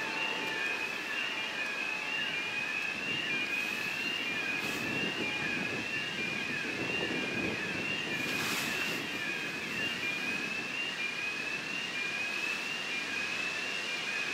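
A VL80S electric locomotive and its passenger train approaching from a distance, heard as a steady rumbling noise. Over it a high two-note chirp repeats evenly, about three times every two seconds. A brief hiss comes about two thirds of the way in.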